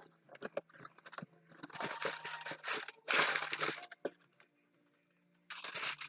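A cardboard mailing box being opened and its packaging handled: scattered clicks and three longer bursts of rustling packaging, the last near the end.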